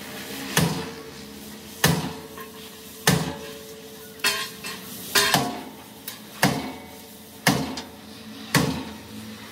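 Hammer blows on metal at a steady pace, about one a second, each strike ringing briefly.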